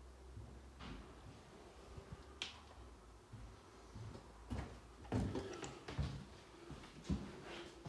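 Footsteps on a debris-strewn floor: quiet, irregular clicks and crunches, sparse at first and coming thicker from about halfway.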